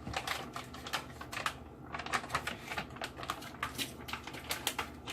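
Plastic packaging crinkling and crackling as it is handled, in quick irregular clicks.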